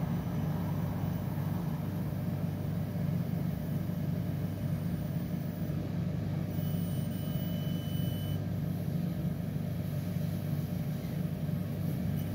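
A 10-watt diode laser cutter running as it cuts solder-stencil pads: a steady low hum, with a faint high whine for about two seconds near the middle.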